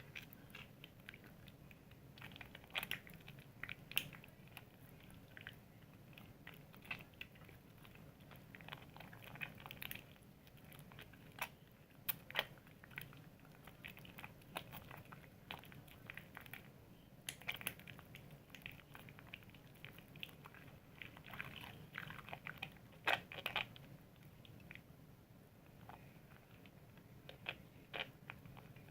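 Soap being lathered: faint wet squishing with irregular crackling and clicking, a few louder clicks here and there.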